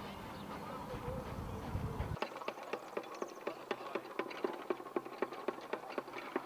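A low rumbling noise, then from about two seconds in a rapid run of sharp clicks or chirps, about five a second.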